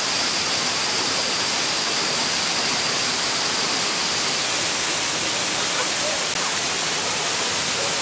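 Steady rushing of a waterfall and stream, with a thin steady high-pitched drone over it that stops about halfway through.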